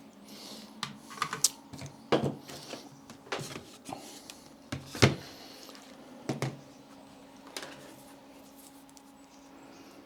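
Irregular clicks and knocks of small parts and tools being handled on a workbench, with the sharpest knock about five seconds in, over a faint steady hum.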